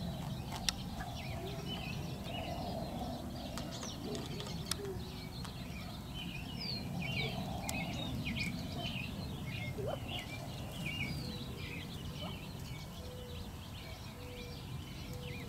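Gambel's quail chicks peeping: many short, high chirps in quick succession, over steady low background noise.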